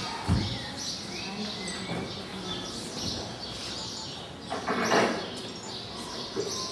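Low hubbub of children's voices with shuffling and small knocks. A louder noisy burst comes about five seconds in.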